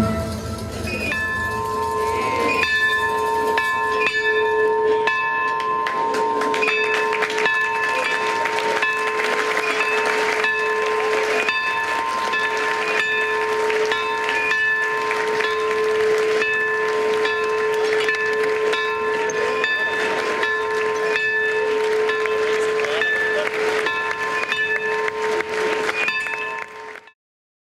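Bell-like ringing, several steady pitches held together, with short clicks scattered through it; it stops suddenly near the end.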